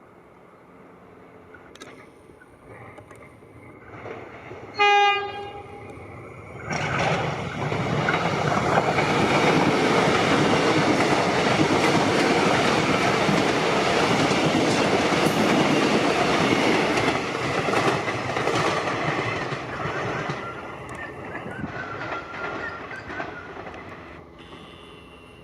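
X'Trapolis electric train sounds one short horn blast about five seconds in. A couple of seconds later it passes with a loud rumble and rail clatter that fades away over the last few seconds.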